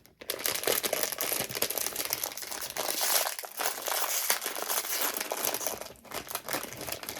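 Crinkling and rustling of a blind-box figurine's plastic wrapping being handled and opened, a dense, continuous crackle with a short lull about six seconds in.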